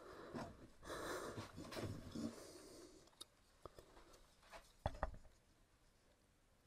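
Faint handling sounds: soft rustling for the first couple of seconds, then a few light clicks and knocks, the sharpest about five seconds in.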